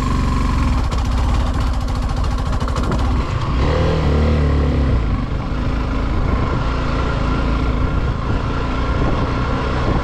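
Suzuki motorcycle engine pulling hard under load up a steep, rough hill road, with its note rising and falling about four seconds in.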